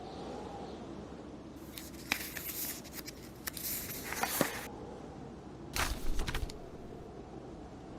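Steady hiss of blizzard wind and fire, with paper rustling from pages being turned about one and a half seconds in and again near six seconds, mixed with sharp crackles from the fireplace.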